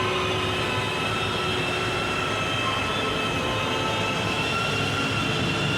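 Electric sander running steadily against a puttied wall, a motor whine with several held high tones over a grinding hiss.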